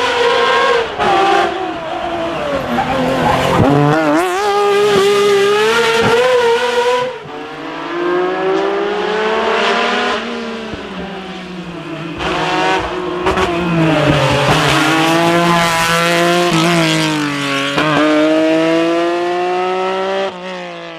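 Lancia Stratos HF Group 4 rally car's Ferrari Dino V6 engine revving hard at full rally pace. The pitch climbs through each gear and drops at every shift, with a sudden break about seven seconds in.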